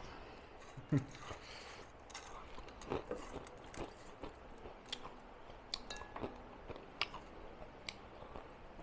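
A person chewing food with small mouth noises, broken by scattered short clicks and light clinks, about a second in the loudest.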